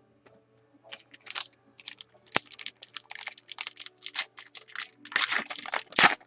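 Trading cards and their pack being handled, giving irregular rustling and crinkling that grows busier near the end, over a faint steady hum.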